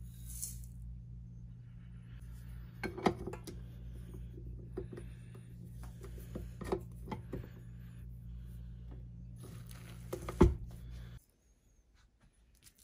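Light clicks and knocks of a small glass bowl and a stand mixer's flat beater against a steel mixing bowl, over a faint steady low hum that cuts off about eleven seconds in.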